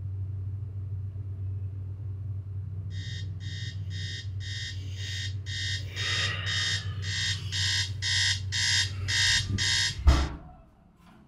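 Smartphone alarm beeping about twice a second and growing louder, over a low steady hum. It stops at once with a loud thump about ten seconds in.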